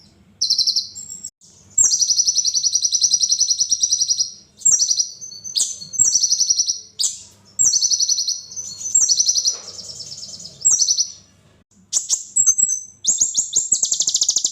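Sunbird (the 'kolibri ninja' of Indonesian songbird keepers) singing rapid, high, buzzy trilling phrases one after another with short pauses: a fast, 'spicy' song used as master material for training other songbirds.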